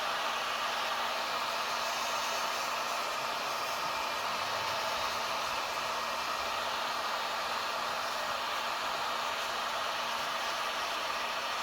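Heat gun running steadily: an even rush of blown air with a faint steady hum from its motor.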